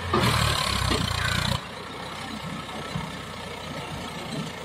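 Swaraj 744 FE tractor's diesel engine running hard as it hauls a loaded trailer of dirt, loud for the first second and a half, then dropping suddenly to a quieter, steady run.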